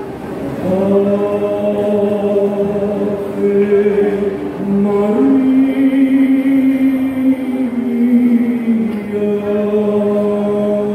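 Slow choral singing, like a hymn or chant, with long held notes that step from one pitch to the next every second or few.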